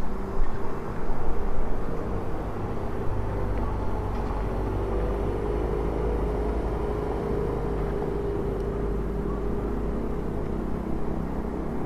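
Street ambience dominated by a motor vehicle's engine running close by: a steady low rumble with a hum that drifts slightly in pitch, after a few louder bumps in the first two seconds.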